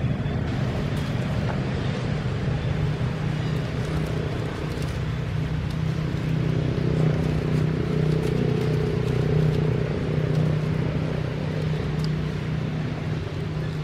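A steady low mechanical hum, like an engine running nearby, a little louder in the middle.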